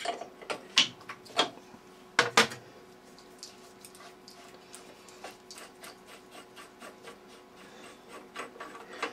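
Metal clicks and knocks as a hook spanner slackens an ER32 collet nut on a lathe collet holder, with the loudest knock about two seconds in. The nut is then spun off its thread by hand, giving faint light ticks of metal on metal.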